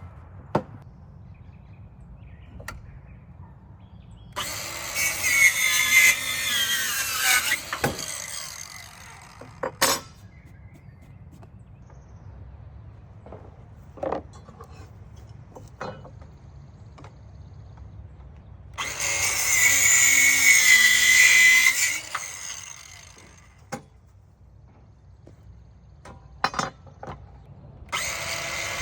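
Ryobi 18V ONE+ 4-1/2-inch cordless compact circular saw cutting 2x4 lumber, twice for about four to five seconds each and again starting near the end. During the cuts the motor's whine dips in pitch as the blade bogs down. Between the cuts there are a few sharp knocks.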